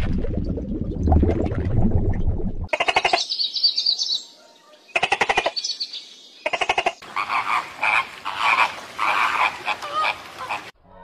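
Animal sound effects. A low rumble comes first. A few seconds in, three short rapid rattling calls like croaks follow, with quick high chirps among them. From about seven seconds, many overlapping calls run until just before the end.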